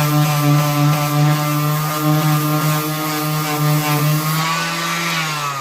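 Electric power tool motor running at a steady high pitch, then slowing with a falling pitch as it is switched off near the end.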